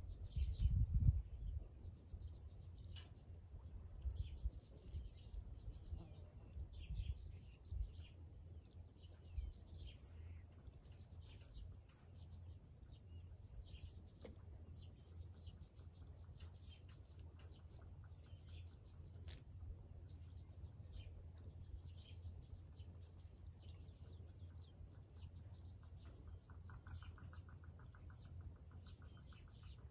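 Many small birds chirping, with short high calls scattered throughout over a low rumble of wind on the microphone that gusts hardest about a second in. Near the end a fast, evenly pulsed trill comes in.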